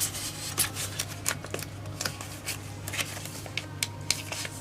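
Yu-Gi-Oh trading cards and their packaging being handled: many small, irregular crinkles and clicks, over a low steady hum.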